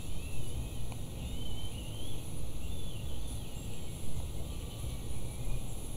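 Steady low rumble of background noise coming through a video-call microphone, with faint, high, wavering chirps during the first half.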